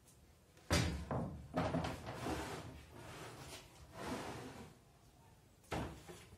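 A heavy solid angelim amargoso board set down onto the metal top of a Makita table saw with a loud knock about a second in, then slid and shifted across the table with scraping and smaller knocks, and set down with another knock near the end.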